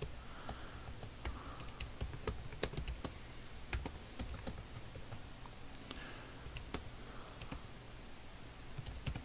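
Typing on a computer keyboard: irregular keystrokes, a few a second, over a faint low hum.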